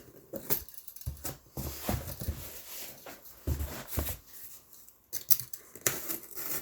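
Cardboard shipping box being handled and cut open with a box cutter: scraping, the blade slicing tape, and irregular clicks and knocks against the cardboard.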